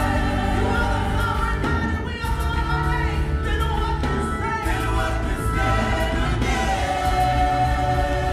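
Gospel church choir singing in full voice, with lead singers on microphones, long held notes and a strong bass line underneath.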